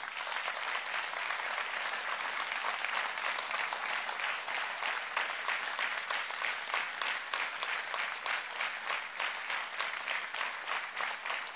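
Large audience applauding: many hands clapping steadily, easing slightly near the end.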